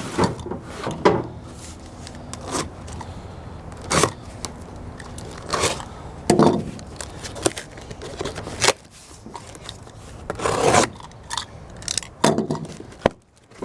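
A cardboard shipping box and its packing material being handled and opened: intermittent scraping, rubbing and crackling strokes with a few louder knocks.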